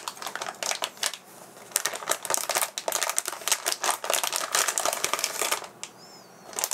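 Metallic anti-static shielding bag crinkling as hands unwrap a circuit board from it: a dense run of crackles that lets up briefly about a second in and again near the end.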